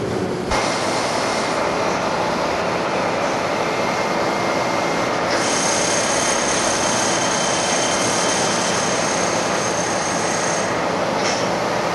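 High-pressure spray nozzle jetting liquid dust-control sealant onto a coal pile: a loud, steady rushing hiss with a faint high whine. Its tone shifts abruptly about half a second in and again about halfway through.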